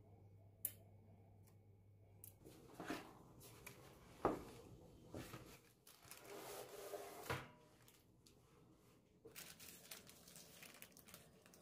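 Faint rustling and crinkling of parchment paper being handled around a baked sponge cake, with two soft knocks in the middle. A low steady hum stops a couple of seconds in.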